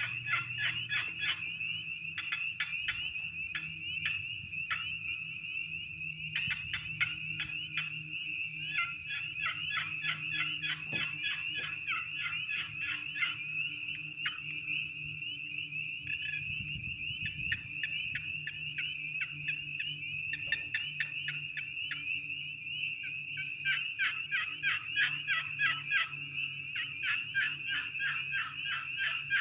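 Maple-over-Honduran-mahogany short box turkey call being played: a long series of quick turkey notes, about five a second, in runs broken by brief lulls.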